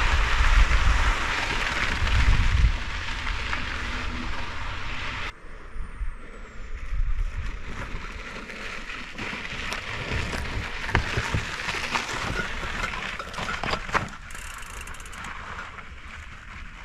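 Bicycles rolling along a sandy, stony dirt road, with wind rushing over the microphone. About five seconds in the rush stops suddenly. After that the quieter crunch of tyres remains, with scattered clicks and knocks from stones and the bike.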